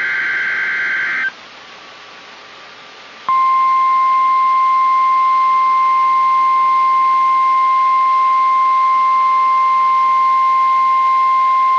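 NOAA Weather Radio emergency alert: a screechy burst of SAME digital header data ends a little over a second in, then after a short hiss-filled pause the steady single-pitch weather radio alert tone (1050 Hz) comes on at about three seconds and holds unbroken.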